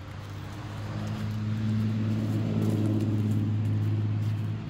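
A car's engine humming close by, growing louder over the first couple of seconds and then holding steady.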